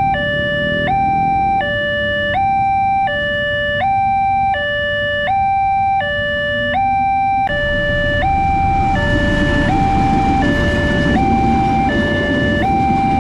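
Railway level-crossing alarm: an electronic two-tone warning alternating between a higher and a lower tone, each held about three-quarters of a second. From about 8 seconds in, the rumble of a passenger train passing through the crossing rises underneath it.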